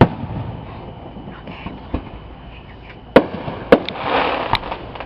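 Aerial fireworks bursting: a boom at the start with a rumble after it, then two sharp bangs about half a second apart a little after three seconds in, and a few scattered pops near the end.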